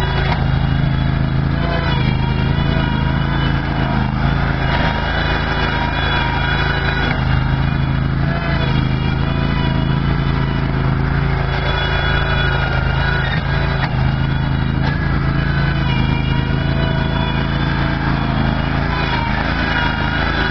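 Backhoe's engine running steadily with a deep drone and a high whine that wavers up and down every few seconds.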